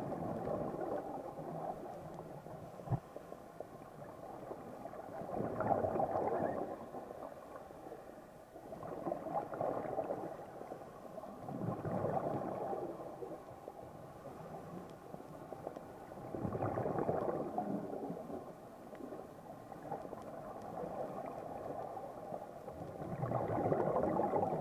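Scuba diver's exhaled bubbles gurgling from a regulator underwater, heard through a camera housing, swelling and fading every few seconds with each breath.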